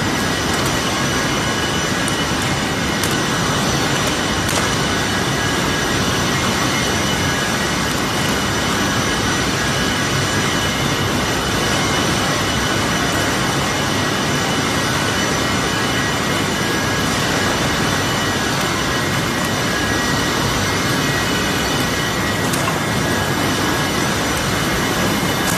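Steady machinery noise of a flooring painting line, with conveyors, motors and cooling fans running together. It is a constant rush of noise with several steady high whining tones on top.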